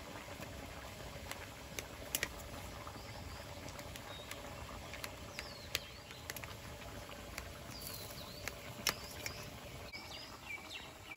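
Knife cutting a steamed cabbage-and-egg cake in a steel plate, the blade clicking sharply against the metal a few times. Faint birds chirp in the background.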